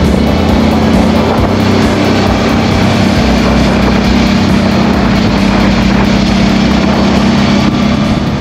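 Motorcycle engine running steadily at road speed, with wind noise over the microphone.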